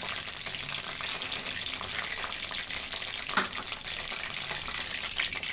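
Peanuts deep-frying in hot oil in a wire-mesh strainer held in a kadai: a steady sizzle with fine crackling, and one sharper click about three and a half seconds in.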